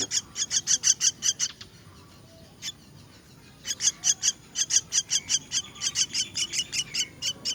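Myna chicks giving rapid, high begging chirps, about six a second. They break off for about two seconds and start up again.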